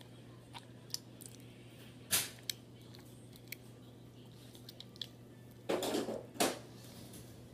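Homemade glue slime being squeezed and worked by hand in a bowl to press the water out: scattered small clicks and taps, a sharp louder noise about two seconds in, and a short cluster of louder squishing handling noises near the end, over a low steady hum.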